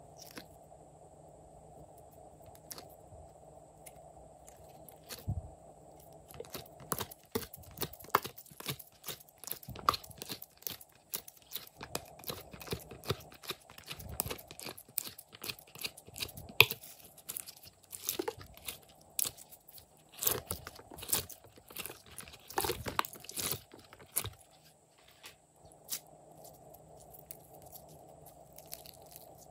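Glossy slime being pulled from a silicone mold and squeezed and stretched by hand: a dense run of small sticky clicks and pops, busiest through the middle and thinning out near the end.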